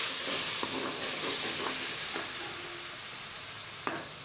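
Onion and spice masala sizzling and steaming in a metal karahi while it is fried (bhuna) with a little water, the hiss slowly fading. A metal spoon scrapes and knocks against the pan as it is stirred, with a sharper knock near the end.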